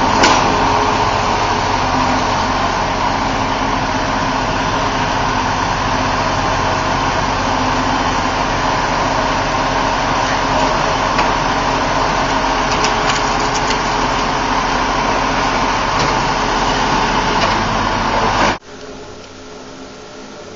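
Engine of heavy demolition equipment running steadily while it works on the house, with a few light clicks of debris about two-thirds of the way in. It cuts off suddenly near the end, leaving a quieter steady hum.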